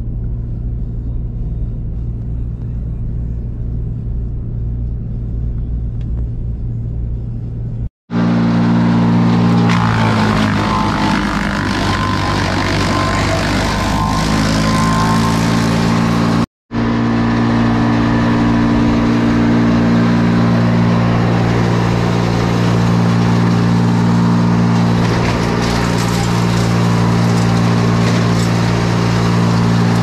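Pickup truck driving, heard as a low engine and road rumble inside the cab. About eight seconds in it cuts to a wood chipper's gasoline engine running loud and steady while brush is fed into it, its pitch wavering for a few seconds before it settles.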